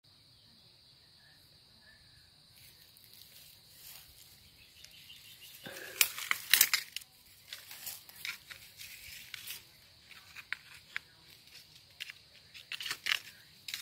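Rustling and crackling of dry brush, twigs and leaves in short irregular bursts, starting after a couple of seconds and loudest about six to seven seconds in.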